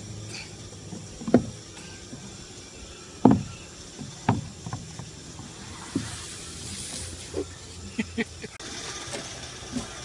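Scattered sharp knocks and bumps from a toddler moving on a plastic slide and wooden play set, over a steady low hum.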